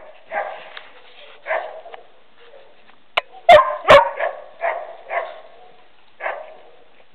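A dog barking: about eight short barks at uneven spacing, the two loudest close together about halfway through.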